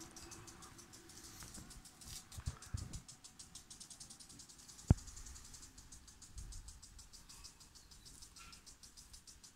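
Crickets chirping in a steady, rapid pulsing trill. A few low thumps come around two to three seconds in, and a single sharp click just before the halfway mark is the loudest sound.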